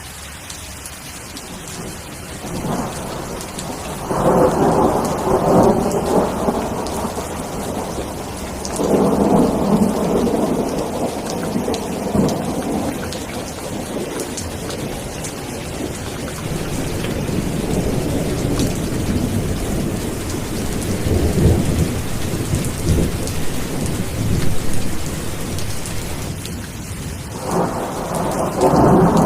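Steady heavy rain with rolling thunder: long rumbles swell and fade about four seconds in, again around nine seconds, a longer one through the middle, and another building near the end.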